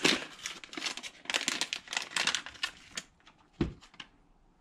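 Crinkling and crackling of packaging being handled, a dense run of quick crackles for about three seconds, then a few scattered clicks and a short low sound, after which it goes quiet.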